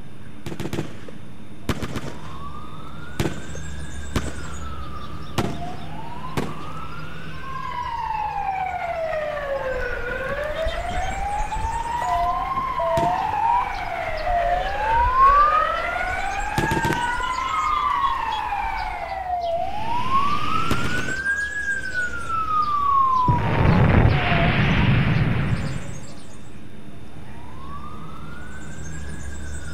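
Several sirens wailing, their pitch rising and falling over and over and overlapping one another. Sharp knocks sound in the first few seconds, and a loud rushing noise swells twice in the second half.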